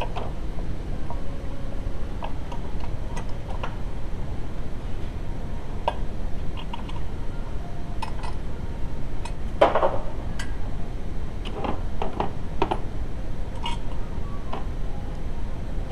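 Scattered light clinks and taps of metal tools or parts, about a dozen, the loudest a little before the middle, over a steady low rumble.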